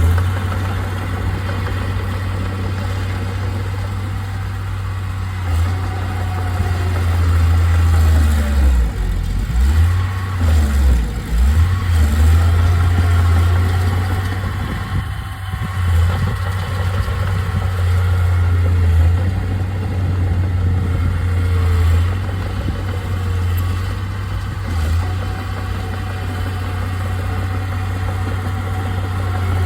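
Heavy diesel engine of earth-moving machinery running with a low rumble, its pitch and load rising and falling as it works, most unsteady around a third of the way in.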